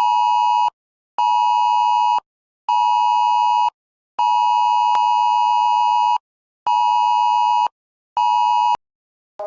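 Wireless Emergency Alert attention signal: a two-tone beep near 853 and 960 Hz sounding in a repeating pattern of one two-second tone and two one-second tones, with half-second gaps. Six beeps are heard.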